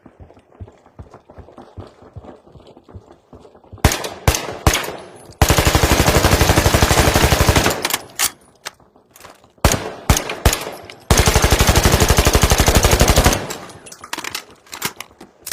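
Suppressed Brownells BRN-180 rifle firing two long full-auto bursts of rapid, evenly spaced shots, each about two and a half seconds long. Short runs of sharp clicks come before and between the bursts.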